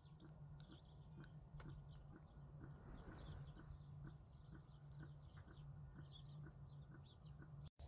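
Near silence with faint, scattered bird chirps over a low steady hum.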